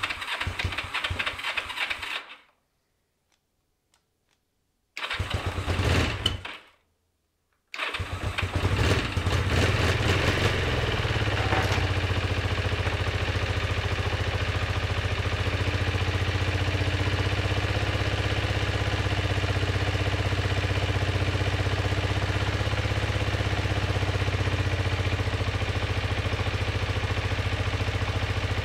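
1988 Kawasaki EN450's parallel-twin engine cranked on the electric starter in three tries. The first two are short and don't catch. On the third, about eight seconds in, it fires and settles into a steady run on its freshly de-rusted carburetors, with the throttle held slightly open because the idle is not yet set.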